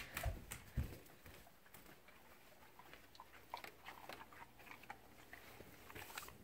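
A dog chewing a soft, soaked bacon-bite treat, faint wet smacking and small clicks of the jaws, with a couple of louder knocks in the first second as the treat is taken.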